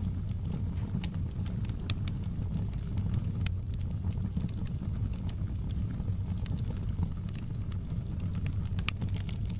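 Wood fire in a fireplace burning with a steady low rumble of flames and scattered sharp crackles and pops.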